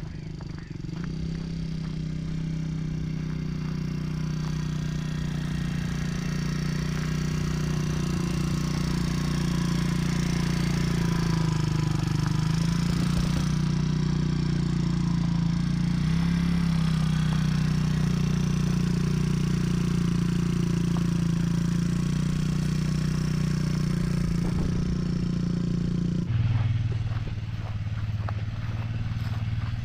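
Polaris quad bike's engine running as it is ridden round a dirt track, a steady note that shifts pitch a couple of times and drops lower about 26 seconds in.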